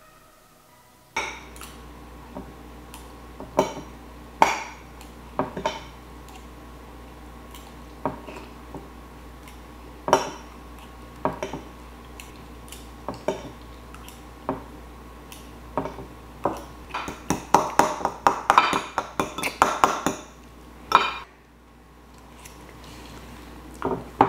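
Metal knife and fork clinking and scraping against a plate while a steak is cut, starting about a second in as scattered sharp clicks, with a dense run of clinks about three quarters of the way through. A steady low hum sits underneath.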